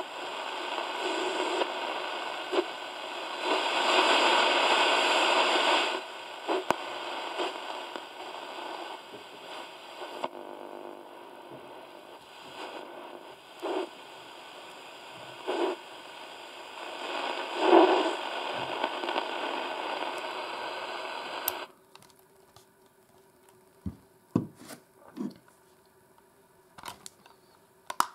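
Sony ICF-P26 pocket transistor radio hissing with static from its speaker as the tuning wheel is turned, no station tuned in, with swells of louder hiss along the way. The static stops suddenly about 22 seconds in, followed by a few light clicks from handling the radio's plastic case.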